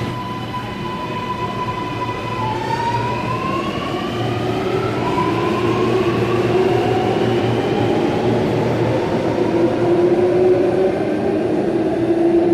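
Alstom Metropolis driverless metro train's electric traction whine: several thin tones hold steady, then glide upward in pitch from a couple of seconds in, over a rumble that grows louder.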